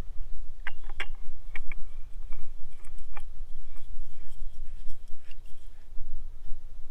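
Wind buffeting the microphone as a steady low rumble, with a scatter of small handling clicks and rustles during the first three seconds or so.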